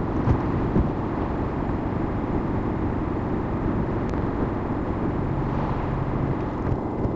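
Cabin road noise from a car cruising at motorway speed: a steady drone of tyres on the road and the engine, with a couple of light knocks in the first second.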